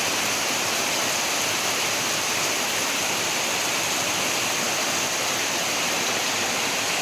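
Rushing water, a steady, unbroken rush with no breaks or distinct splashes.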